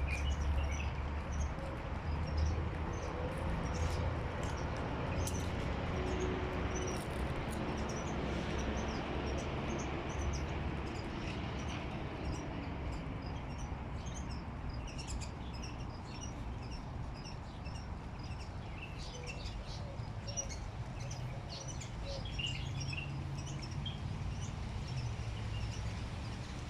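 Many small birds chirping and twittering in quick, scattered high notes over a steady low rumble.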